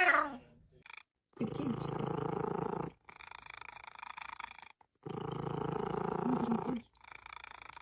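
A domestic cat purring in two long stretches, with a short meow right at the start.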